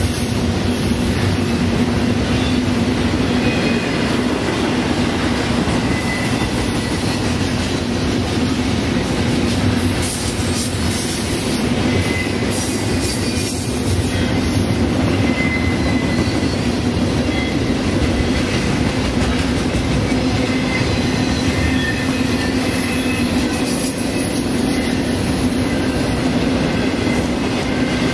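Train cars rolling steadily past on the rails with a continuous rumble and a faint, high wheel squeal.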